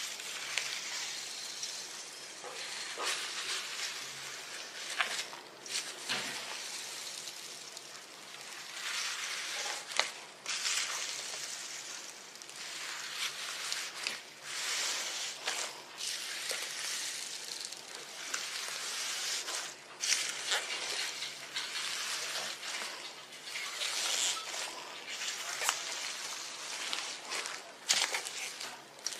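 Slime being mixed and worked by hand: sticky, wet sounds that come and go in waves, with scattered sharp clicks and pops.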